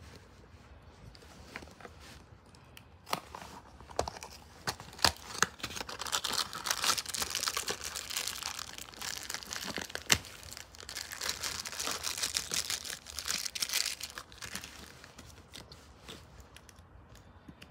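A crinkly toy wrapper being torn open and crumpled by hand, in two long spells of crinkling, with several sharp clicks from handling the toy pieces.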